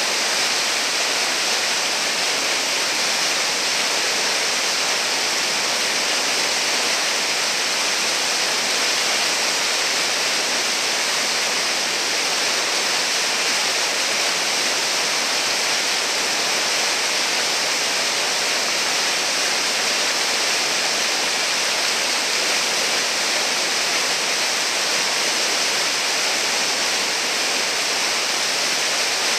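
Whitewater pouring over a river ledge and churning in the hole below: a steady, hissing rush of water that does not change.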